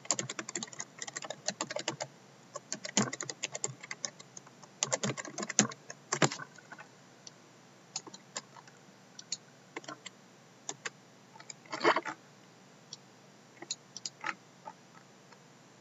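Typing on a computer keyboard: quick runs of key clicks in the first few seconds, then scattered single clicks as the mouse is used, with a short burst of keystrokes near the end.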